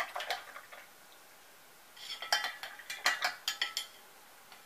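A paintbrush being rinsed in a small metal cup: quick light metallic clinks and taps as it knocks against the inside, a pause of about a second, then another run of ringing clinks.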